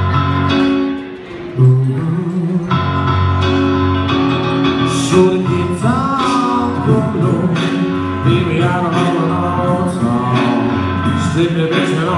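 Live piano playing with a man singing into a microphone, amplified through the room's sound system.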